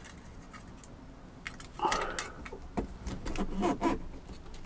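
Aluminum foil tape crinkling and crackling as it is handled and pressed into place by hand. The crackles come in irregular bursts, starting about two seconds in.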